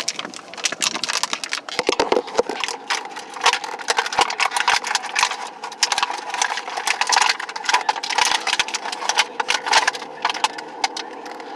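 Packaging being handled and torn open during an unboxing: dense, irregular crackling and clicking that keeps up throughout, over a faint steady hum.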